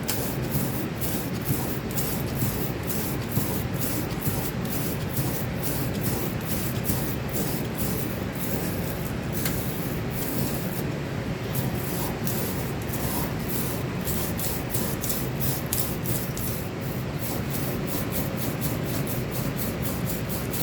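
Copper pipe end being sanded clean by hand, in quick even back-and-forth rubbing strokes, about three a second, kept up steadily.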